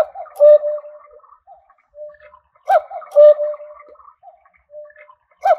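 Battery-powered (quartz) chalet cuckoo clock sounding its recorded cuckoo call through its speaker: a two-note "cu-ckoo", a short higher note falling into a longer lower one, repeated three times about two and a half seconds apart.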